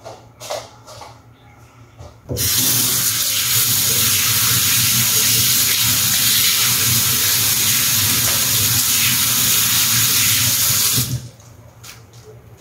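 Kitchen tap running full into the sink, a steady rush of water that starts suddenly about two seconds in and is shut off abruptly about nine seconds later.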